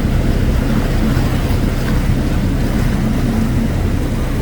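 An engine running steadily: a constant low drone with a faint hum in it and a wash of wind noise over it.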